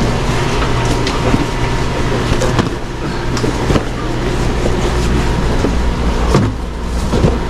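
Heavy cardboard boxes of Coca-Cola syrup handled off a hand truck and stacked, with several knocks and thuds and cardboard scraping, over a steady low machinery hum.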